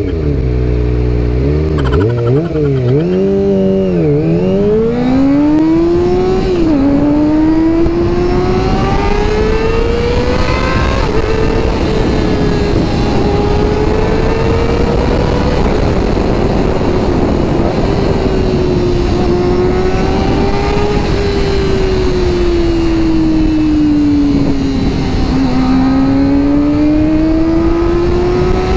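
Kawasaki ZX-25R's 250 cc inline-four engine pulling away hard. The revs climb and drop through several quick upshifts in the first seven seconds, then the engine note rises and falls gently while cruising, over steady wind noise.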